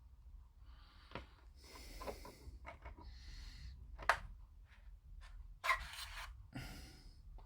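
Hand-drilling and handling a small plastic model-kit part with a 1 mm drill bit: short scraping and rubbing sounds with a few sharp clicks, the loudest click about four seconds in.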